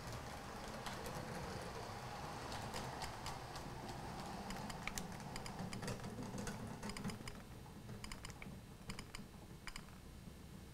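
Old Ringfield-motored Bachmann OO gauge DMU running along the track: a faint low motor hum with irregular clicking of the wheels over the rail joints and pointwork, the clicks coming thicker in the second half. It is an old model said to need a little attention.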